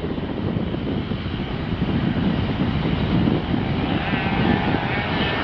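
BAe Avro RJ85 jet climbing out after takeoff, its four turbofan engines at takeoff power making a steady low rumble. A wavering high whine from the engines comes in about four seconds in.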